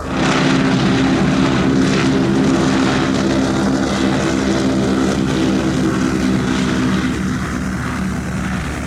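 Ford Tri-Motor's three radial engines running, a loud steady propeller drone of several tones that eases slightly near the end.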